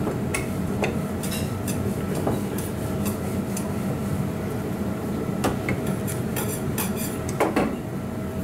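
Wooden rolling pin rolling out paratha dough on a stainless-steel counter, with scattered light knocks and clicks of the pin against the steel, the loudest pair near the end, over a steady kitchen hum.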